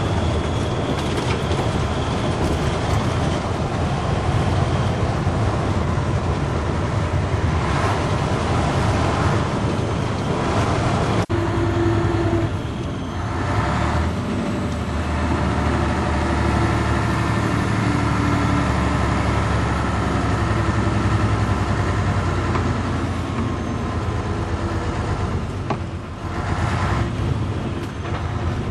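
Pegaso 1183 truck's 260 hp diesel engine running steadily, heard from inside the cab while the Fuller manual gearbox is worked. A sharp click about 11 seconds in is followed by a brief drop and a change in the engine note, and there is another short dip near the end.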